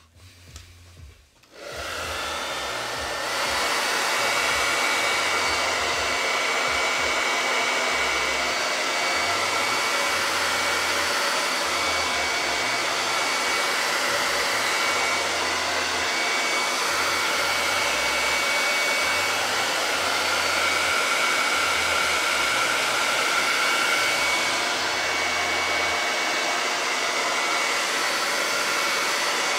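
Handheld hair dryer switching on about a second and a half in and growing louder a second or so later, then blowing steadily with a thin high whine over the rush of air, drying paint on a wooden cutout.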